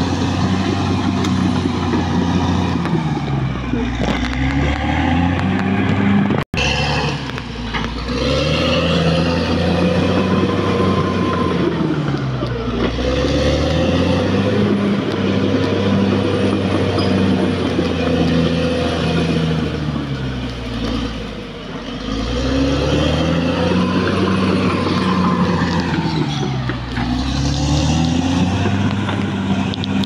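Caterpillar D6R XL bulldozer's diesel engine working hard, its pitch rising and falling every few seconds as the load comes on and off. The sound cuts out for an instant about six and a half seconds in.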